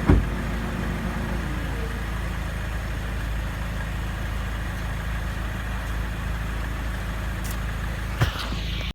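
2008 Honda Accord four-cylinder engine running, its tone falling over the first two seconds as the revs drop, then idling steadily. A sharp thump comes right at the start and another near the end.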